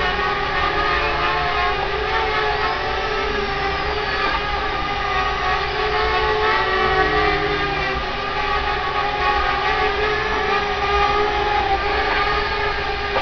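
Small quadcopter drone hovering, its four motors and propellers giving a loud, steady whine of several tones that drift slightly in pitch.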